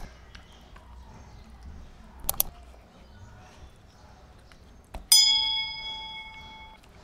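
A bell-like notification chime about five seconds in, ringing several clear tones at once and fading over under two seconds. A quick pair of mouse-click sound effects comes about two seconds in. These are the sound effects of a like and get-notified overlay.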